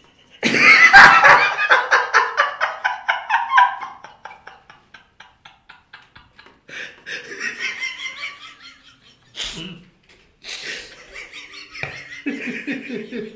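Men laughing: a loud, high-pitched burst of rapidly pulsing laughter starts about half a second in and trails off over several seconds, followed by scattered laughs and lower chuckling near the end.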